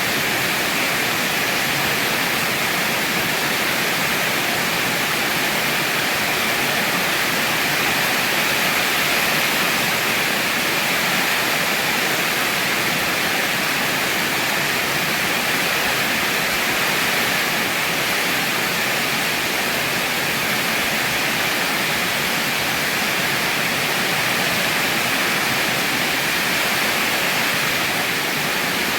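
Heavy rain pouring steadily, a dense, even hiss with no let-up.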